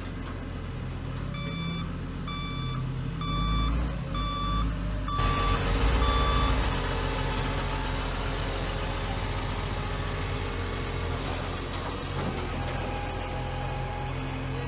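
Rollback tow truck's reversing alarm beeping six times, about once a second, over the steady running of the truck's engine. The engine gets louder about five seconds in as the flatbed is tilted back to unload.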